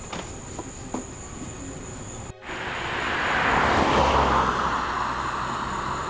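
A car passing on the road: tyre and engine noise swells to a peak about four seconds in, then eases slightly.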